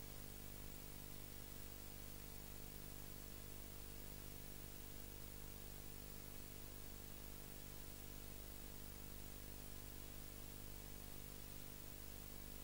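Steady hiss with a low, even hum and no other sound: the background noise of an old film transferred without a soundtrack, with no ball or bat sounds heard.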